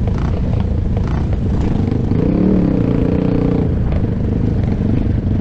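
Single-cylinder four-stroke off-road engine running at speed. Its pitch rises and then falls once, about two to three seconds in.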